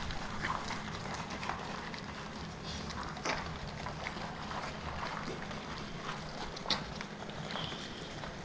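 A litter of Rottweiler puppies eating dry kibble from a metal bowl on a tile floor: a steady mix of crunching, chewing and small clicks, with two sharper clicks, one about three seconds in and one later.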